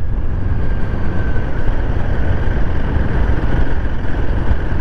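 Royal Enfield Himalayan 450's single-cylinder engine running steadily while the motorcycle is ridden along a highway, heard through a low, even rumble of wind on the camera microphone.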